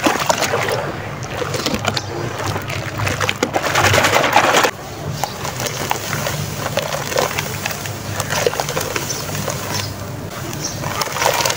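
Hands squelching and sloshing wet sand in soapy, foamy water, full of small crackles. About five seconds in it drops abruptly to a quieter crackle as a lump of dry sand crumbles in the hand and pours into the water.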